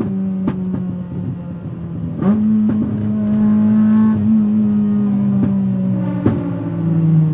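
Honda Civic EP3's K20 four-cylinder engine running at steady revs while driving. The note dips briefly about two seconds in, then falls in pitch near the end, with a few sharp clicks in between.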